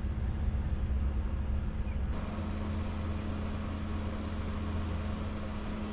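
A sailing catamaran's diesel engine running steadily under way, a low even hum; about two seconds in the sound grows fuller and noisier.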